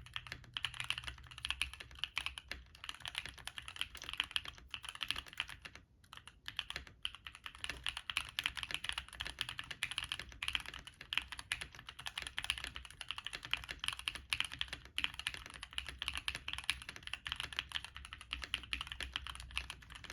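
Steady fast typing on a mechanical keyboard with stock Gateron Baby Raccoon linear switches, blank PBT Cherry-profile keycaps and a stacked acrylic case. The keystrokes run continuously, with a couple of brief pauses about six and seven seconds in.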